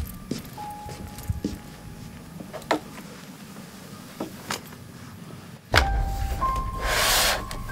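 Sparse, tense film score of held high tones with a few scattered clicks. About six seconds in comes a sudden loud low thud, followed by a short hissing swell.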